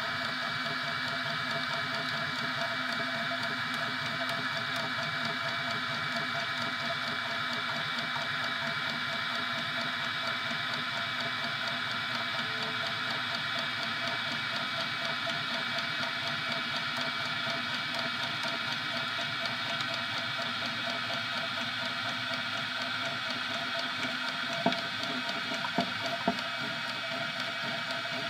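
3D printer printing: a steady mechanical whir holding several fixed tones, with three short clicks near the end.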